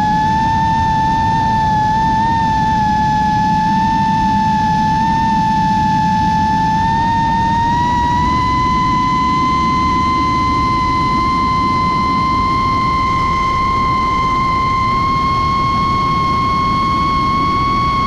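Brushless motors and propellers of a 5-inch FPV racing quadcopter on a 6S battery, heard from the onboard camera: a steady high whine over rushing air. The whine steps up in pitch about seven to eight seconds in as the throttle rises, then holds.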